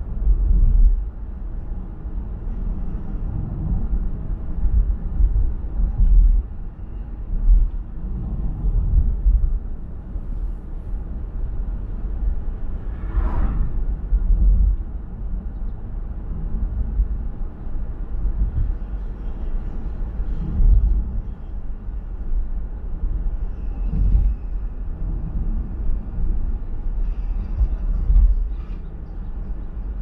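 Low, uneven rumble of road and wind noise from a moving car, swelling and fading. A brief rush of higher noise comes about halfway through.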